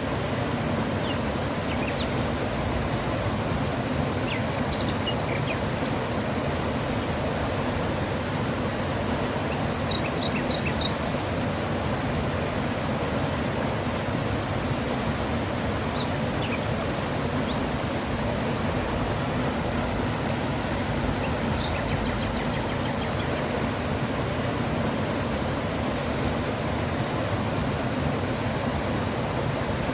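Mountain river flowing, a steady, even rush of water. A faint high chirp repeats about twice a second throughout, with a few brief higher chirps about a second in and again about ten seconds in.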